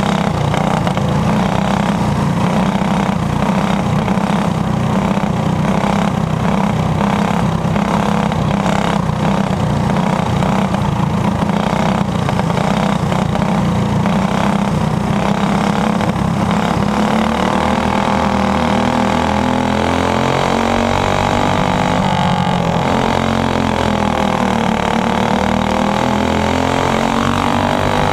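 Onboard sound of a dirt-oval racing kart's engine running hard and continuously. From about two-thirds of the way in, its pitch rises and falls repeatedly as the engine speed changes.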